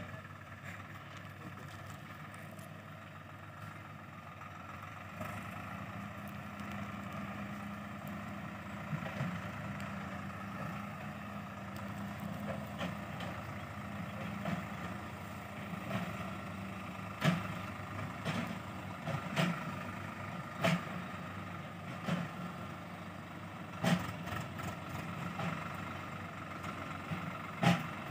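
Swaraj 744 XT tractor's three-cylinder diesel engine running steadily as it pulls a trolley along a rough dirt track, growing louder as it approaches. From about halfway on, irregular sharp clattering knocks sound over the engine.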